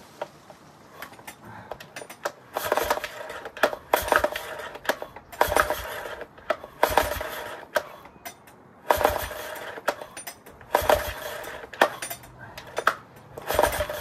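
Yamaha 9.9 hp four-stroke outboard being pull-started, about seven recoil-starter pulls roughly every one and a half to two seconds. Each pull turns the engine over with a short whir and metallic clicks, but the engine does not keep running, which the owner puts down to fuel starvation.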